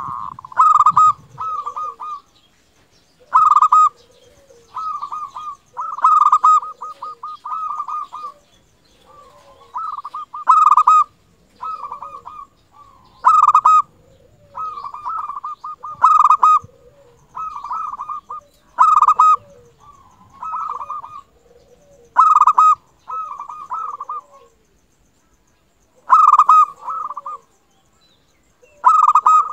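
Zebra dove (local perkutut) singing its cooing song: phrases of rapid staccato coos repeated every two to three seconds, each opening with a loud note followed by a quicker run.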